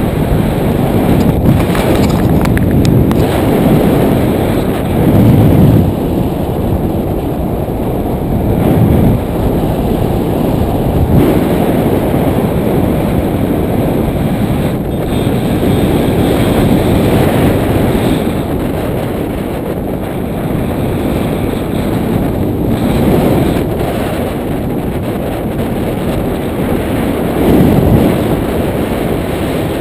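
Wind rushing over a GoPro's microphone on a paraglider in flight: a loud, low rumble that swells and eases in gusts, strongest about five seconds in and again near the end.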